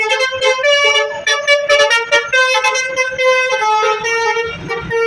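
Indonesian bus 'telolet basuri' musical air horn playing a quick melody, note after note. A low rumble comes in near the end.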